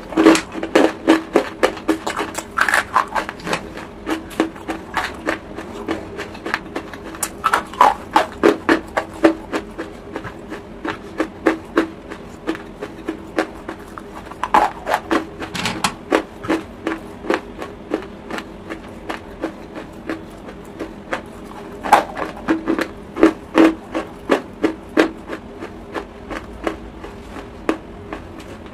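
Close-miked crunching and chewing of lumps of chalk, with many sharp crunches a few a second, in runs broken by short pauses.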